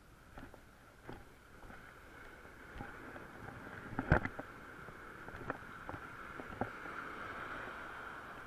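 Surf washing in over the sand around the legs, a steady hiss that swells toward the end, with scattered small clicks and one sharp knock about four seconds in as the rod is swung back to cast.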